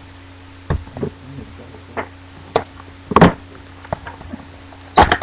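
Hands handling a trading card box and its packs: scattered sharp taps and knocks, the loudest about three seconds in and again near the end, over a steady low hum.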